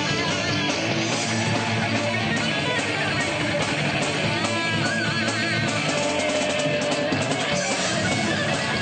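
Live heavy metal band playing loud, with electric guitar to the fore.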